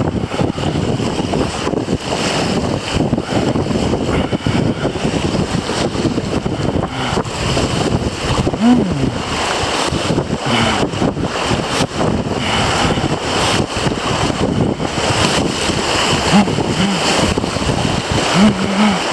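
Rushing river water in light class I–II rapids, with wind buffeting the microphone as a steady rough noise. A few brief low pitched sounds come and go in the second half.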